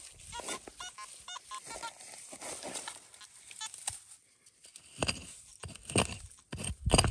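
A quick run of short high-pitched chirps in the first two seconds, then a small pick-headed digging tool striking into dry soil three times, about a second apart, near the end.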